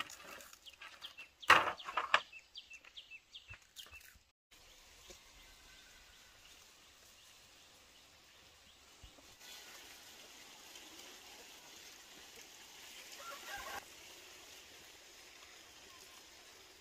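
Dry firewood sticks knocking and clattering as they are picked up from a woodpile, the loudest knock about a second and a half in. After a sudden cut, faint outdoor background with chickens, one giving a short cluck near the end.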